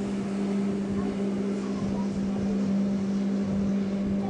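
Cruise boat's engine running with a steady, unchanging hum, heard from the deck with some wind noise; it cuts off abruptly at the end.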